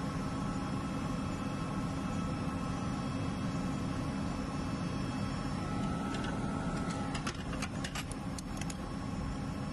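Steady drone of running machinery in a ship's engine room, with a few light clicks near the end.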